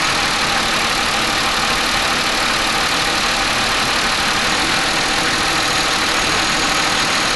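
Gasoline car engine running steadily at idle with its tailpipe stuffed with rags: a blocked exhaust raising back pressure above 1 psi.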